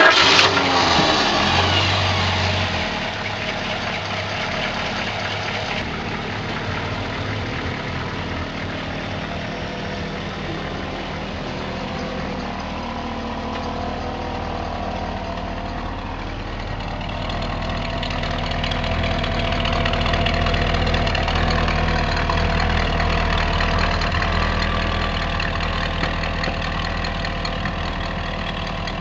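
A vehicle engine starts with a loud burst and settles into a steady idle. It grows somewhat louder for a few seconds past the middle.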